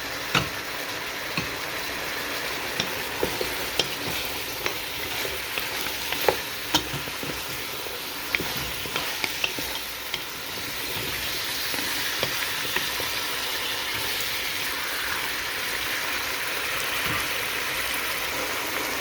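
Lamb and sliced carrots sizzling in hot oil in a pot as they are stirred, the spoon clicking against the pot again and again in the first half. The sizzle then runs on steadily.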